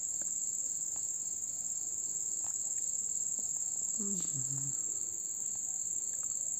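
Crickets trilling in a steady, high-pitched chorus, with a short, low vocal murmur about four seconds in.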